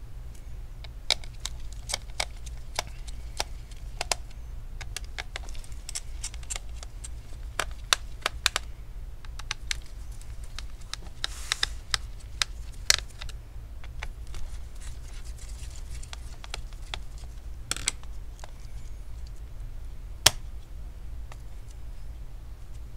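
Small screwdriver working the heatsink screws of a Dell G3 laptop, making scattered light metallic clicks and ticks as the screws are loosened, with one sharper click near the end. A steady low hum runs underneath.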